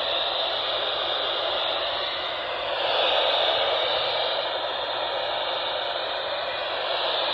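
Steady hiss of radio static from a weather radio receiver on a weak signal, the broadcast voice lost in the noise.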